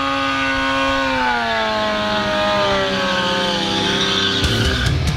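Sport motorcycle engine held at high revs during a rear-tyre burnout, its pitch sagging gradually lower, over the hiss of the spinning, smoking tyre. Heavy rock music with drum hits cuts in near the end.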